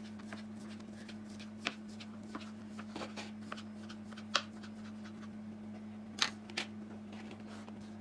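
Kitchen knife cutting boiled chicken breast into cubes on a plastic cutting board: irregular light taps of the blade on the board, with a few sharper knocks, over a steady low hum.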